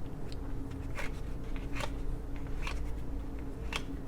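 Trading cards being flipped through by hand one at a time: a short papery flick about once a second, four in all, over a faint steady low hum.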